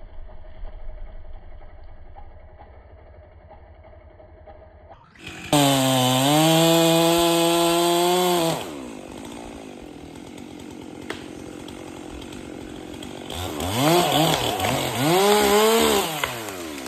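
Chainsaw held at full throttle for about three seconds, then dropping to idle. Near the end it is revved up and back down twice.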